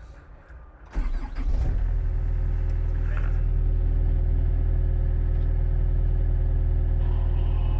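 SANY SY60 compact excavator's diesel engine starting: a brief crank about a second in, catching within a second, then running at a steady idle.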